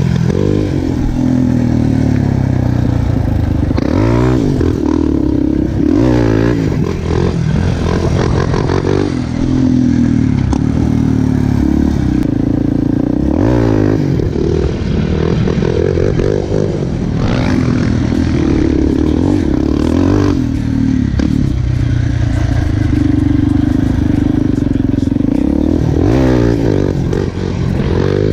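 Yamaha Raptor quad's single-cylinder engine through an aftermarket FMF exhaust, revving up and dropping back again and again as it is ridden. The pitch climbs and falls every few seconds with throttle and gear changes.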